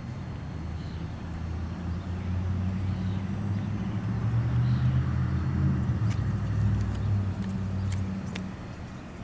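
A motor vehicle's engine passing close by, a low hum that grows louder, peaks in the middle, then fades away near the end.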